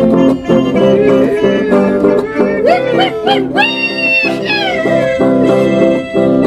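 Chamamé music with a regular beat. About three seconds in, a high, wavering cry glides up and down over the music for about two seconds.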